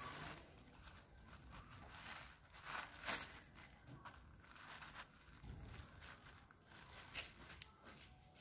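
Thin plastic bag crinkling and rustling in irregular bursts as a baby monkey paws and pulls at it, loudest about three seconds in.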